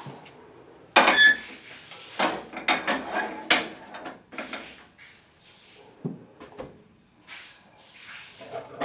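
Kitchen clatter: a metal frying pan set down on a gas stove with a sharp ringing clank about a second in, then a run of knocks and clatters of cookware. Quieter knocks follow, and near the end there is a thump as the refrigerator's freezer compartment is opened and handled.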